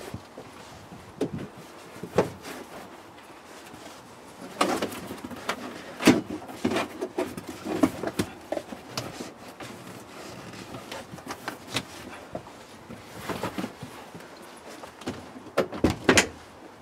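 Car floor carpet being pushed and fed into place by hand: irregular rustling and scuffing with scattered knocks, busiest in a spell near the middle and again near the end.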